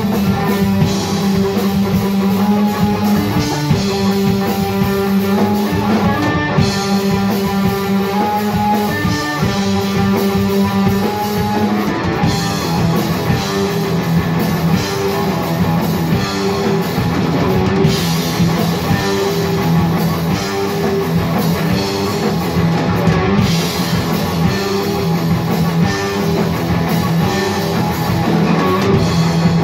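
Rock band playing live: electric guitars and a drum kit playing a repeating riff at a steady, loud level.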